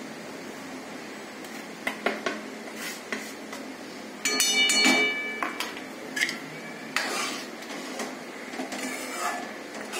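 Metal spoon and ladle clinking and scraping against a metal kadhai while salt is stirred into thick pav bhaji. The utensils knock against the pan several times, with one louder ringing clang about four seconds in.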